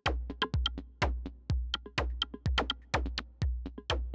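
Electronic music with a drum-machine beat: a deep kick about twice a second under sharp ticking clicks and short high synth notes.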